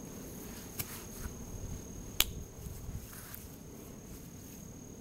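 A steady high insect trill, like crickets, over a low outdoor rumble. A small click comes just under a second in, and a sharp click a little after two seconds is the loudest sound.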